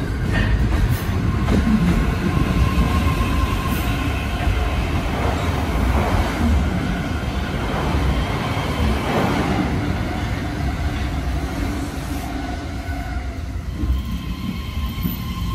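JR E131-1000 series electric commuter train pulling in along the platform and slowing. Its wheels rumble over the rails and its traction motors give several whining tones that shift in pitch.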